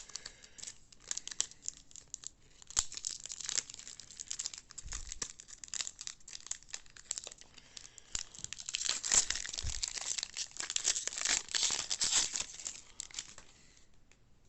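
Foil wrapper of a baseball card pack being torn open and crinkled by hand: a run of crackling rustles that grows busiest in the second half and dies away near the end.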